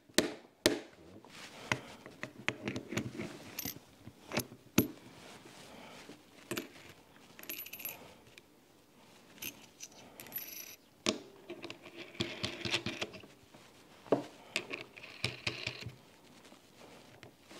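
Small metal gunsmithing tools and parts being handled on a bench: a sharp tap just after the start and another about five seconds in, then light metallic clinks and rattles.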